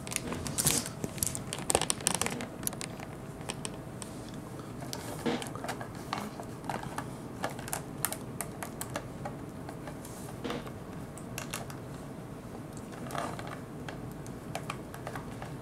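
Small clicks and taps from an articulated Sentinel Chou Dan Kadou Ryo action figure being posed by hand as its joints and parts are moved. The clicks come thickly in the first two seconds or so, then sparser and scattered.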